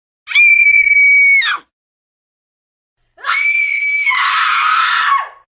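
A woman screaming twice in terror, two separate shrill, sustained shrieks. The second is longer and turns raspy partway through before trailing off with a falling pitch.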